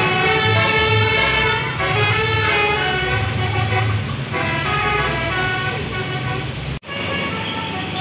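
A bus's telolet horn, a set of multi-tone air horns, plays a quick tune of stepped notes over the low rumble of a bus engine. The tune fades about four seconds in, and the sound drops out for an instant near the end.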